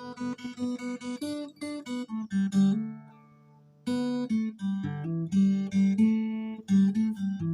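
Acoustic guitar playing a run of plucked notes. It pauses for about a second near three seconds in, then the playing resumes.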